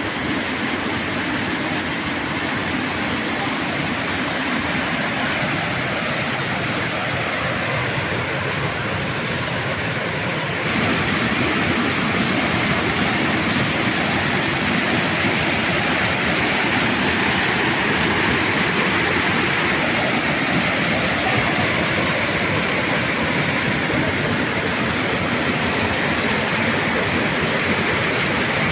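Waterfall: a steady rush of falling water that gets louder about a third of the way in.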